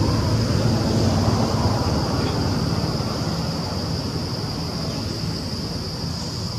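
Insects droning steadily at one high pitch, over a constant low rumble of outdoor noise that fades a little toward the end.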